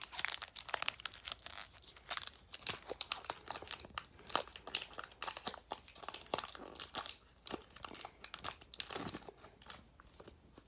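Foil Pokémon booster pack wrapper being crinkled and torn open, a run of irregular crackles.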